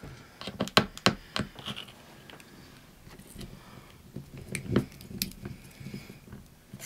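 Irregular light clicks and taps of small laptop screws and a screwdriver being handled, a few louder ones close together a little past the middle.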